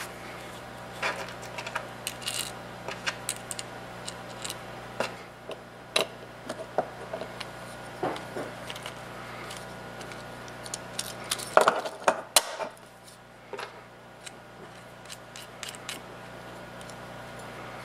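Hand assembly of a 3D-printed extruder: irregular small clicks and taps of a steel bolt, bearings, washers and nuts against printed plastic parts as the large printed gear is fitted onto the bolt. A louder cluster of knocks comes about two-thirds of the way through.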